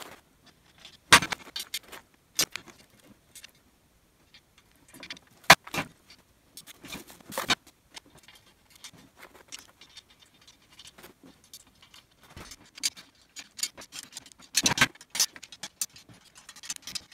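Loose steel bolts, washers and nuts clinking and rattling as they are handled and fitted to caster-wheel mounts on an engine hoist base. Scattered sharp metal clicks run through it, the loudest about a second in and about five and a half seconds in.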